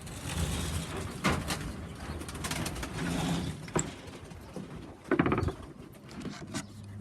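Pigeons cooing in low, rolling stretches, with several sharp knocks and a brief rapid clatter about five seconds in.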